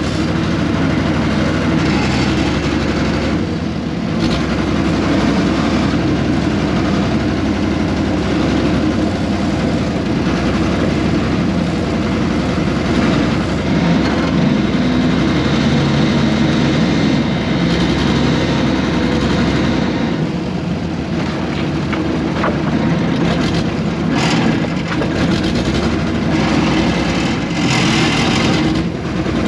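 Air-cooled Deutz diesel engine of a 1970s RM.80 excavator running steadily, with a few short, harsher noises in the second half.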